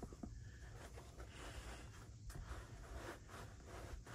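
Faint rustling and light scraping, as of things being handled, barely above room tone.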